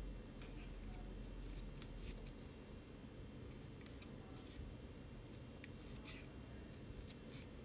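Wooden double-pointed knitting needles clicking lightly against each other, with yarn rubbing, as stitches are knit and cast off: scattered faint clicks over a steady low hum.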